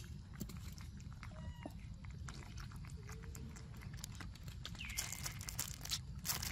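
Small wet clicks and smacks of a baby macaque sucking milk from a squeeze pouch held to its mouth, over a steady low rumble. A brief falling high chirp sounds about five seconds in.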